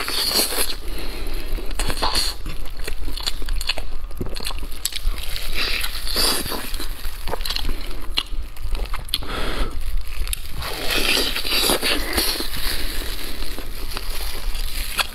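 Close-miked biting into and chewing a braised pork knuckle, a dense run of small clicks and crackles from the meat and skin being bitten and chewed.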